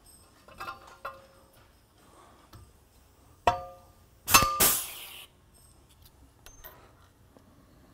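Pneumatic blind rivet gun setting a pop rivet in a metal plate: two light metal clinks as the rivet goes into the hole, a ringing metallic knock, then a loud sharp snap as the mandrel breaks and a short burst of exhaust air hiss.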